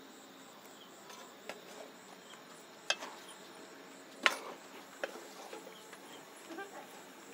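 Metal spatula stirring chicken masala in a steel kadhai, knocking against the pan in a few sharp clinks, the loudest about four seconds in.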